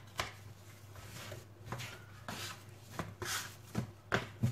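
Hands punching down and kneading risen, soft potato yeast dough on a countertop, deflating it: a series of irregular soft thumps and pats.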